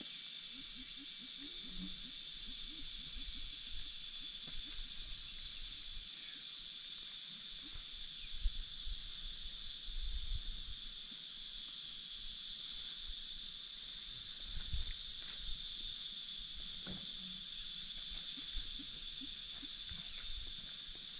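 Steady, high-pitched drone of an insect chorus that keeps going without a break, with a few faint low rumbles beneath it.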